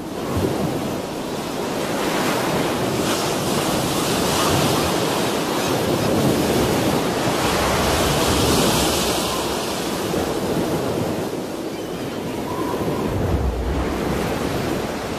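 Heavy ocean surf breaking against coastal rocks in a strong wind: a continuous rushing that swells and eases, loudest through the middle and building again near the end with a low rumble.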